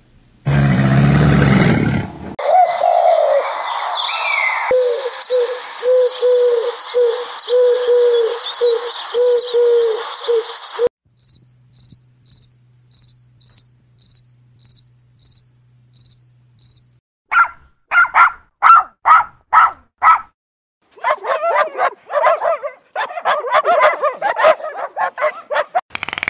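A run of different animal sounds cut one after another: a short low growl first, then a pulsing call until about eleven seconds in. Next come crickets chirping, a steady train of high chirps about two a second. Near the end there are loud short calls about twice a second, then a faster jumble of calls.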